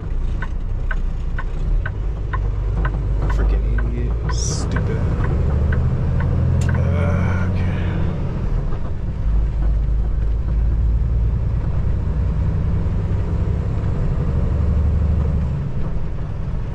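Semi truck's diesel engine running, heard from inside the cab as a steady low rumble that swells from about ten seconds in to near the end. A regular ticking, about two or three a second, runs for the first six seconds, and a short hiss comes about four seconds in.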